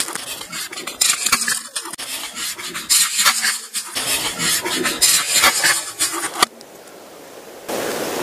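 Irregular clattering and scraping, many quick knocks and rubs, for about six seconds. Then it drops away, and near the end a steady hiss starts abruptly.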